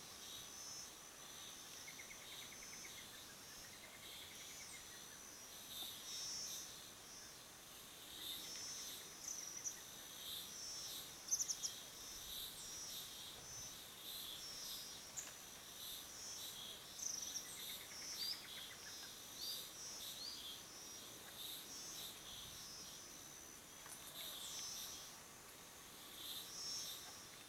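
Steady high-pitched insect chorus with a pulsing buzz, with scattered short, sharp bird chirps above it, the loudest a little before the middle. A few soft trills come and go lower down.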